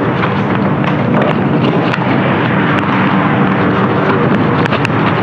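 Steady muffled rustling and rumbling with scattered clicks: handling noise on a hidden camera's microphone as it is carried and jostled.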